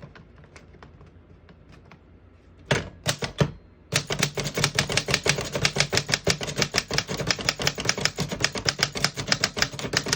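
1915 Corona Folding portable typewriter being typed on. A few separate key strikes come about three seconds in, then from about four seconds a fast, steady run of sharp key clacks, several a second, as a sentence is typed.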